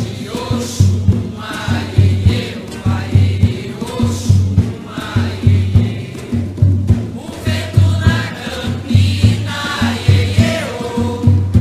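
Umbanda ponto: a group of voices singing a chant over a steady, regular low drum beat.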